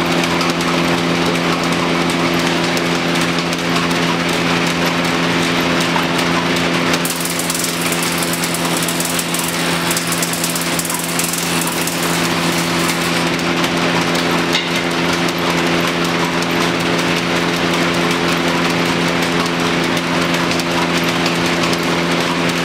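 A thickness planer from about 1910 running steadily with a hum of several even pitches. For several seconds near the middle its cutter head planes a pine board, adding a harsh, bright cutting noise over the hum.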